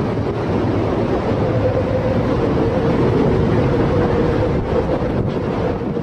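Storm wind blasting the microphone over rough, breaking sea, with a steady humming tone running underneath.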